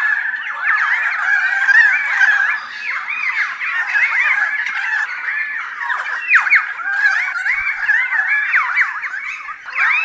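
A flock of many birds calling at once: a dense, unbroken chorus of overlapping chirps and squawks that rise and fall in pitch.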